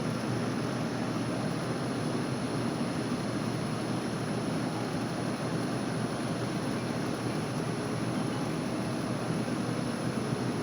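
Steady rushing noise of a running VRF air-conditioning outdoor unit, with a faint high steady whine.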